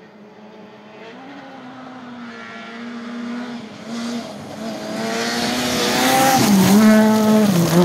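Rally car approaching at speed on a gravel stage road, its engine growing steadily louder as it nears. The engine pitch drops and rises again near the end, over a rising hiss from the gravel.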